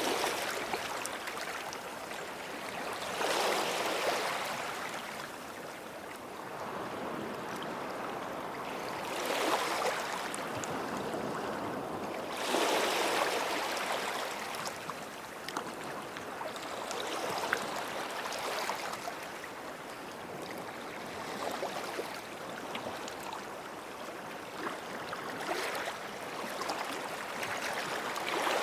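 Small waves breaking and washing up the shore, swelling every few seconds with a steady wash of water between.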